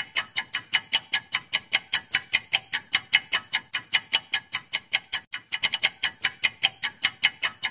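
Timer ticking sound effect for a quiz countdown: sharp, even clock-like ticks at about five a second, with a brief break a little past five seconds in.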